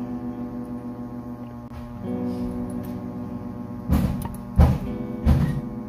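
Background acoustic guitar music with sustained notes. In the second half come several loud, short knocks and scuffs, handling noise as the watch movement is worked on by hand.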